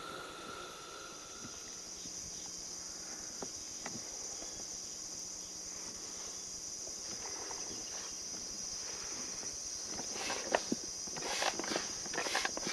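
A steady high-pitched insect drone, with irregular knocks and clatter starting about ten seconds in and growing louder.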